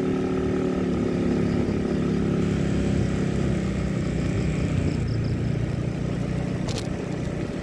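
Motorcycle engine running steadily as it rides along a rough dirt road, with its engine note clearest in the first couple of seconds and a single sharp click near the end.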